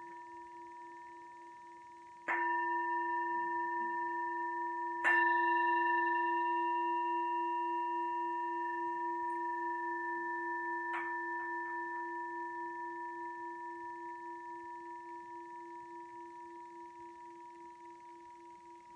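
Singing bowl struck with a mallet, a soft strike and then two harder ones a few seconds apart, each time ringing on in a few steady pitches with a slow wavering pulse and fading away slowly. A light tap and a few small ticks come about eleven seconds in.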